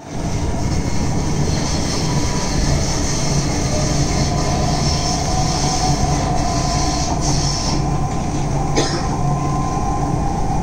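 Chennai Metro train running on an elevated track, heard from inside the carriage: a steady rumble and hum of wheels and motors with a higher hiss that fades about eight seconds in, and a single sharp click a second later.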